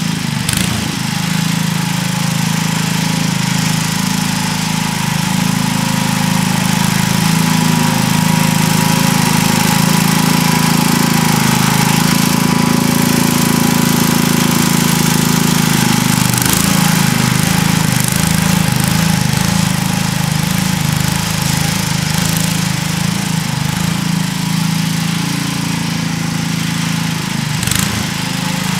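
Sears ST16 garden tractor engine running steadily under load while it plows, with a few sharp knocks.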